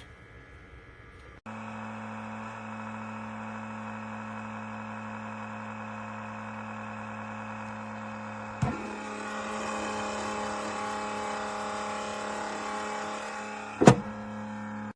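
SUNLU S1 Plus filament dryer running its fans with a steady motor hum and hiss, starting about a second and a half in. A click comes past the middle, after which the noise grows a little fuller, and a sharp knock sounds near the end.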